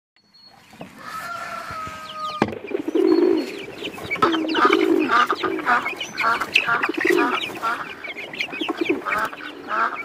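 Chickens clucking in a repeated run of calls, about two a second, with higher chirping behind them; the sound fades in about a second in.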